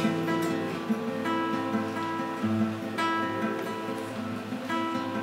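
Classical acoustic guitar played as a slow accompaniment, plucked notes and chords that ring on and overlap.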